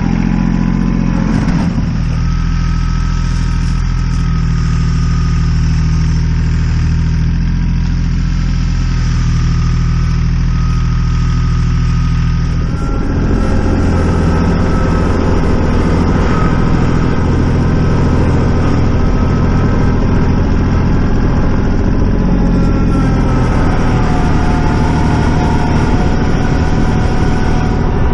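Tractor engine running steadily under load; about halfway through its note changes and it runs a little louder.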